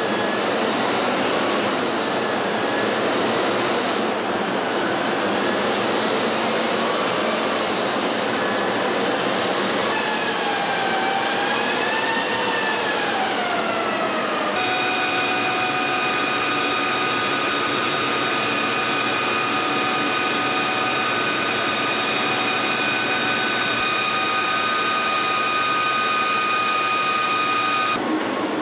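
MAN truck running on a roller test stand: a loud, steady mechanical rush with whining tones. About a third of the way in, the whine wavers up and down in pitch, then holds steady at several pitches until it cuts off near the end.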